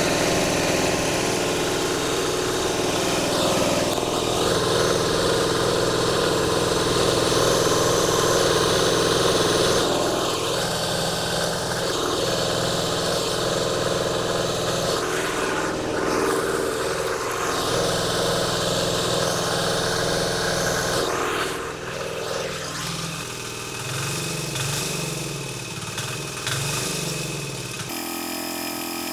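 196cc air-cooled single-cylinder diesel engine running steadily at about half throttle on vegetable oil as its fuel, loud, and running well on it.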